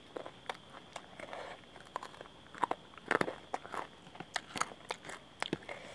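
Close-miked crunchy chewing of a raw green chilli: irregular crisp crunches and wet mouth clicks, loudest about three seconds in.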